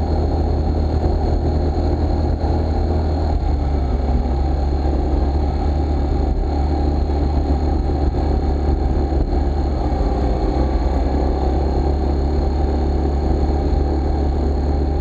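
Scooter cruising at a steady low speed: an even low hum with a thin, steady high whine above it, no revving or change in pace.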